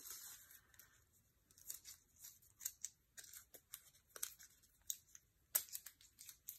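Washi tape being rolled back onto its roll by hand: faint sticky crackles as the tape re-adheres, with scattered light ticks of tape and paper handled on the desk.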